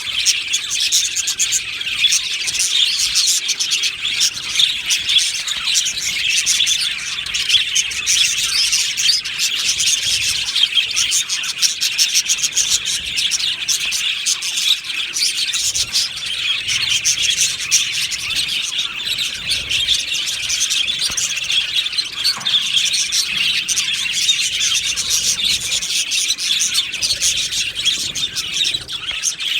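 Budgerigars chirping and warbling continuously, many calls overlapping in a dense, steady chatter.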